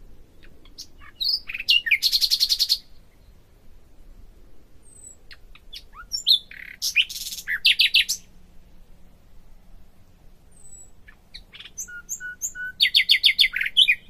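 A songbird singing in three phrases, each made of a few varied chirps followed by a fast, loud trill of rapidly repeated high notes.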